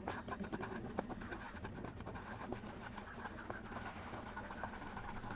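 Wooden spatula stirring and scraping granulated sugar around a nonstick frying pan as the sugar begins to melt: a dense run of small scratches and taps over a faint low steady hum.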